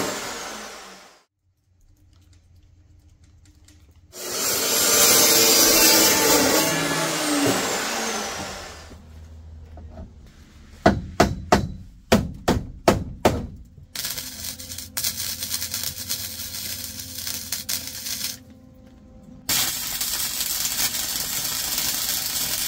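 Metal fabrication in several spells: a power tool cutting scrap iron twice, winding down each time, then about seven sharp strikes in quick succession. Then comes the irregular crackle of a flux-core welder, and a loud steady rush of noise near the end.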